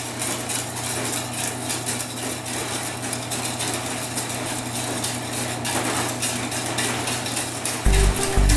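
Wire whisk clinking quickly and repeatedly against a stainless steel mixing bowl as egg yolks and sugar are whisked while hot cream is poured in slowly, so the eggs don't cook. Background music comes in near the end.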